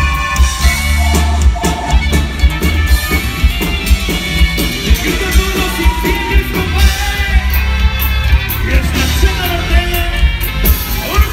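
Live band music with a singer over electric bass and drums, with a steady beat, as heard from within the concert crowd.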